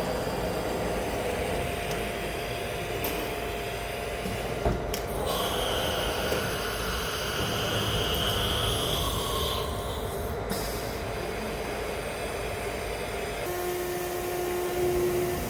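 Acctek CNC router spindle running steadily while it engraves the workpiece. A higher whine joins it for a few seconds mid-way.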